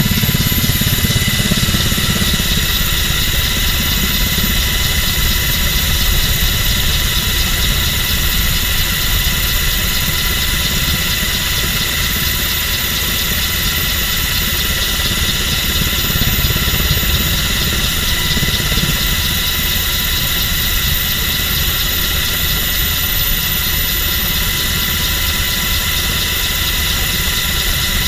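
MH-60 Jayhawk helicopter in flight, heard from inside its open-door cabin: a loud, steady drone of twin turboshaft engines and rotor with several high whining tones over a low rumble.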